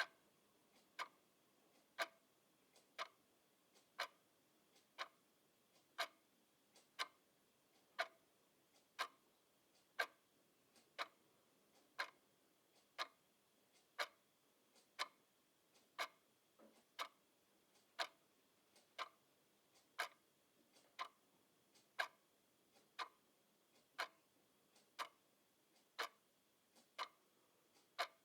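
A clock ticking steadily, about one sharp tick a second, in a regular tick-tock rhythm.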